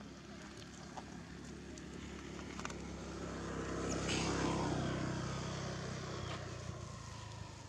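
A motor vehicle driving past: its engine hum and tyre noise build to their loudest about four seconds in, then fade away.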